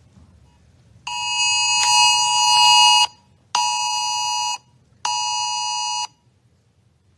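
Israeli war siren played back: an electronic alarm sounding three blasts of steady, multi-tone tone, one of about two seconds starting a second in, then two shorter ones with brief gaps. It is the warning that leaves 15 seconds to reach shelter.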